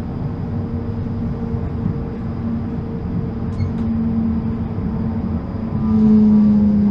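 Electric tram running steadily at about 27 km/h on street track, heard from inside: a constant motor hum over wheel-on-rail rumble, the hum swelling louder about six seconds in.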